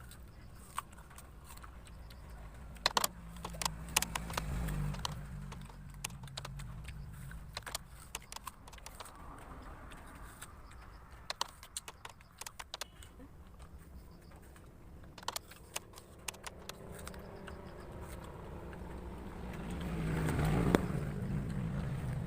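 Crisp, irregular crunching clicks of whole apples being bitten into and chewed fast, with a low hum in the background that swells near the end.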